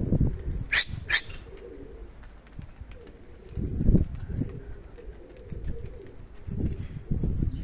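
Domestic pigeons of the Serpasty breed cooing in bouts, over low gusty wind noise. Two short sharp high sounds come about a second in.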